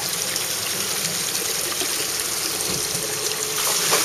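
Steady rush of running, trickling water in a boat's fish holding tank.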